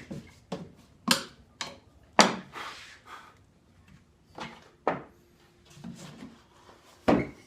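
Irregular knocks and clacks, about ten of them spread unevenly, from a wooden drawer and its metal drawer slide being handled while the slide is fitted to the drawer's bottom.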